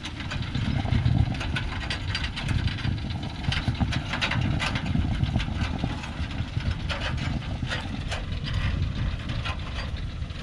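Thaco Forland logging truck's diesel engine idling steadily, with scattered light clicks over it.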